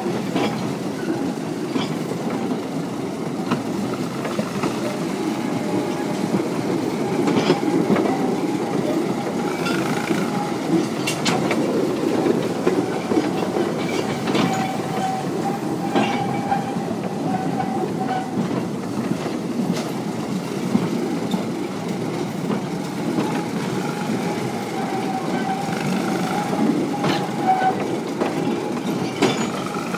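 Narrow-gauge wagons running on 2 ft gauge track behind a small industrial locomotive, heard from aboard the train: a steady rumble of wheels on rail, with sharp clicks every second or two as the wheels cross rail joints and a faint high tone that comes and goes.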